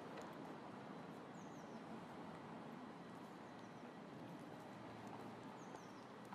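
Faint outdoor ambience: a steady background rush with a few short, high, falling bird chirps, about a second and a half in and again near the end, and scattered light clicks.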